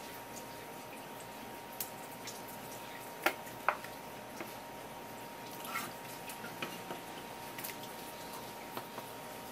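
Small wet squelches and clicks of a skinned spear squid mantle being handled and laid flat on a wooden cutting board, with two sharper clicks about three and a half seconds in, over a faint steady tone.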